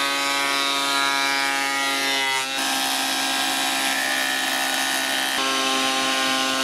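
Parkside PADM 1250 planer-thicknesser running and planing wood, a steady motor whine over the rush of the cutter block. The sound is three short clips cut together. Just before the first change the whine drops in pitch.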